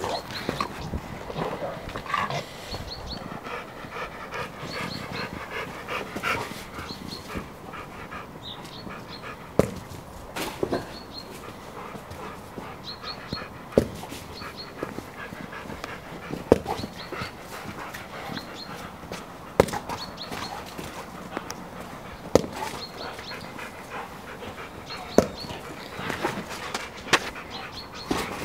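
Rottweiler panting with its tongue out, with sharp clicks every few seconds.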